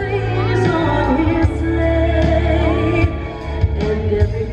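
Music from the Christmas projection show's soundtrack, with singing over a strong, steady bass.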